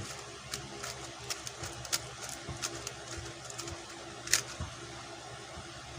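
QiYi X-Man Tornado V2 3x3 speed cube being turned quickly: a stream of irregular plastic clicks, with one louder click about four seconds in.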